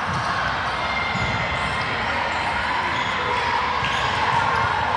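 Indoor volleyball gym ambience: a steady crowd murmur with dull ball thumps, one right at the start and another about a second in.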